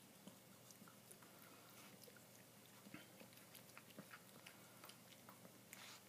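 Faint scattered clicks and small taps as a Shiba Inu puppy noses at a wooden dog puzzle toy and its sliding discs, with a brief rustle near the end.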